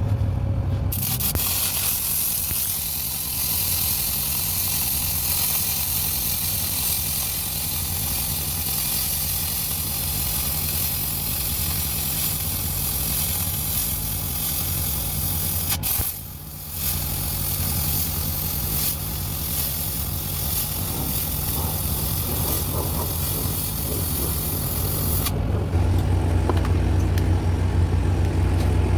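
Welding arc hissing and crackling steadily over the low drone of a running engine, breaking off briefly about halfway through. Near the end the arc stops and the engine drone is left, louder.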